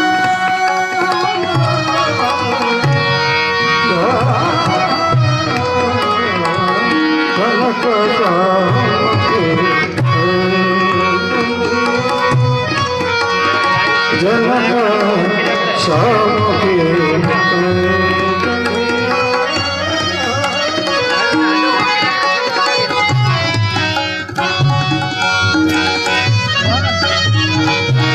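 Indian folk music: a tabla-type hand drum keeps a steady beat under sustained held notes, while a melody line slides up and down in pitch.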